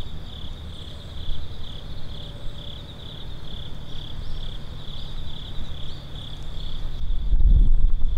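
Insects chirping in a steady pulsing rhythm, about two chirps a second, over a low background rumble. Near the end wind buffets the microphone with a louder low rumble.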